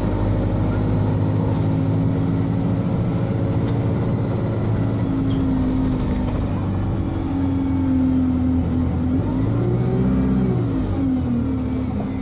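Engine of a 2012 Alexander Dennis Enviro200 single-deck bus running under way. A high whine falls off about four seconds in, then rises and falls again near the end as the engine revs up and eases back.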